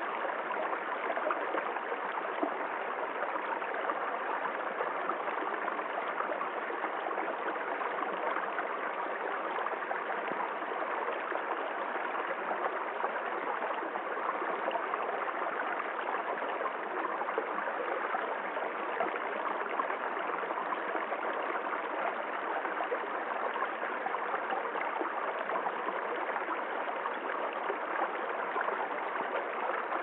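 Small stream flowing steadily over stones and a low cascade, a continuous even rush of water.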